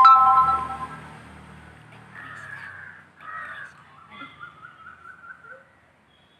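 Crows cawing: a loud call right at the start, two harsh caws about two and three seconds in, then a quick run of short calls that fades out near the end.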